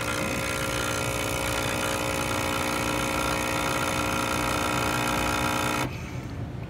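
Nespresso Lattissima Pro's pump running with a steady humming drone during the cappuccino cycle, cutting off suddenly near the end as the drink finishes.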